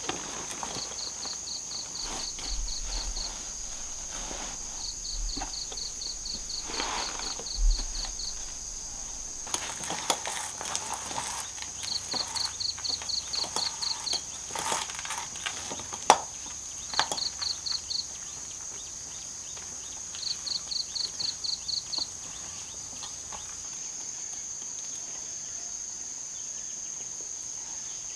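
Insects: a steady high-pitched drone, with bursts of rapid chirps at about four to five a second that start and stop several times. Scattered knocks and rustles come through it, the loudest a sharp click about 16 seconds in.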